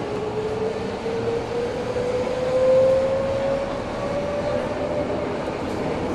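Inside an Eidan 03 series subway car: the VVVF inverter and traction motors whine in a single tone that climbs slowly in pitch as the train accelerates, over the steady rumble of wheels on the rails. The whine fades out near the end.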